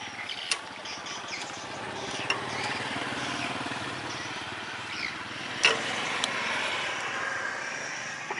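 A small engine running steadily, growing a little louder toward the middle, with a few sharp metal clinks from hands working on a hydraulic cylinder and its seals.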